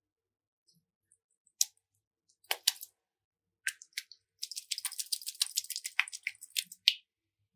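Hands-on slime-making sounds with cosmetics and slime: a few scattered sharp clicks, then a dense run of small crackling ticks from about four and a half seconds in, ending with a sharp click at about seven seconds.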